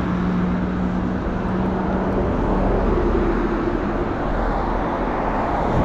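Steady road traffic noise from a busy street: car engines and tyres going by, with an engine hum that holds steady for the first half and changes pitch partway through.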